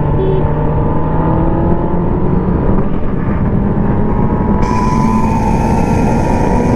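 Kawasaki ZX-10R inline-four engine pulling hard in fourth gear, its note climbing steadily as the bike accelerates, over heavy wind rush. A band of extra hiss joins from about two-thirds of the way in.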